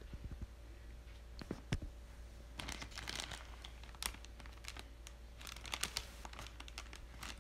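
Metal wire shopping cart clicking and rattling as it is handled and pushed, with crinkling of plastic-wrapped goods in twice, over a steady low hum.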